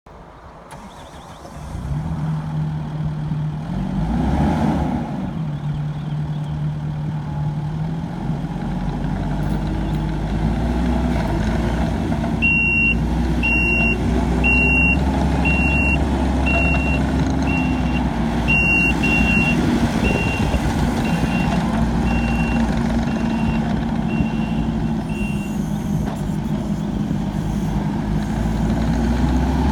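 Kubota SVL75-2 skid steer's diesel engine running, stepping up in speed partway through. A high-pitched reverse alarm beeps steadily for about thirteen seconds as the machine backs up.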